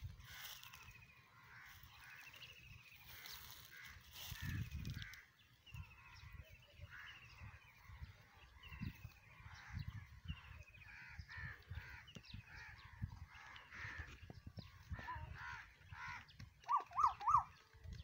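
Crows cawing over and over, one call every second or so, with three loud, quick notes near the end.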